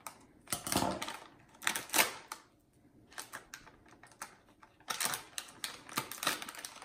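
Scissors snipping through a vacuum-sealed plastic snack bag in a few sharp cuts, then, after a short pause, the bag crinkling and crackling as it is pulled open by hand.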